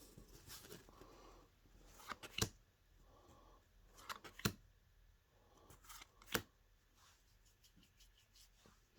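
Trading-card booster pack and cards being handled: soft paper and foil rustling, with three sharp snaps about two seconds apart.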